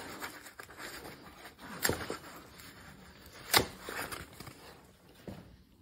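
Handling noise from working on an e-trike's handlebar among its packing, with two sharp knocks about two seconds in and again a second and a half later.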